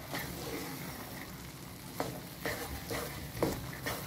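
Wooden spatula stirring thick atta halwa in a nonstick kadai over a low sizzle of ghee, with wet scraping strokes against the pan about twice a second from about two seconds in. The halwa is being cooked and stirred until the ghee separates.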